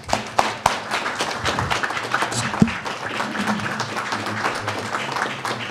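A crowd of people applauding, with dense, steady clapping that thins a little near the end.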